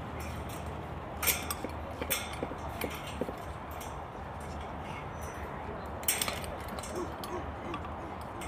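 Steady low background hum at a night ballpark, with a few scattered sharp clicks. The loudest clicks come about a second in and again about six seconds in.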